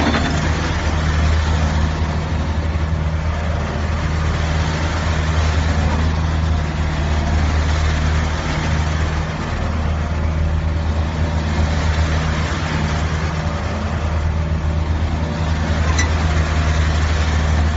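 Cat E120B excavator's diesel engine running steadily, with a deep, even drone.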